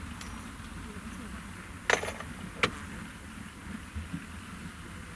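ROPA Maus 5 sugar beet cleaning loader running steadily with a low drone. Two sharp metallic clinks stand out about two seconds in, less than a second apart.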